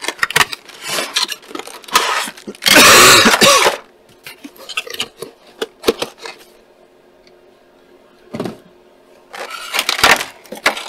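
A figure's thick plastic packaging being handled and opened: scattered crackling and rustling, with one loud, longer rustle about three seconds in. After a quiet stretch, more crackling handling comes near the end.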